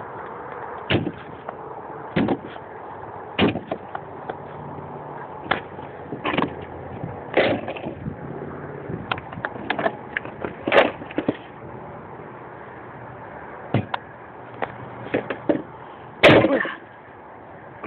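Broadsword blade chopping at ice chunks and a plastic milk jug on wooden deck boards: a string of sharp, uneven knocks and cracks, the loudest near the end.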